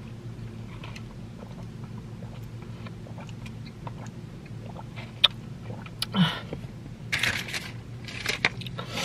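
Drink sipped through a straw from a cup, with small mouth clicks and swallows over a steady low hum. A few louder breathy sounds come about six to eight seconds in, as the cup is lowered.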